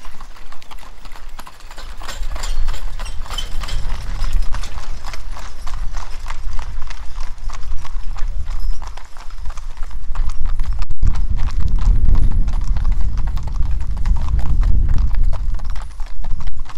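Many horses' and mules' hooves clip-clopping at a walk on a gravel road, the steps overlapping irregularly. A low rumble joins under the hoofbeats about two-thirds of the way through.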